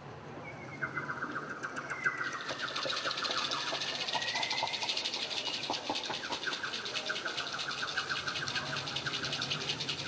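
Nature ambience of birds calling: a rapid pulsed trill, a long whistled glide that dips and rises again, and a dense, fast-pulsing high chirring that builds about two seconds in.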